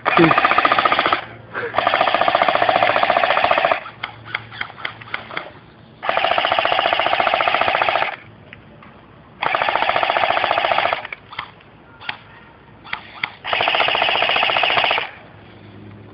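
Electric airsoft guns firing long full-auto bursts of rapid shots, each lasting one to two seconds, five in all, with short bursts and single shots in between: suppressing fire.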